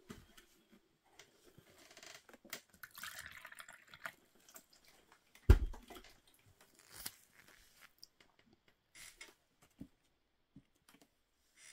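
Water trickling and dripping into a small plastic potion cup, with light handling clicks and one sharp knock about five and a half seconds in.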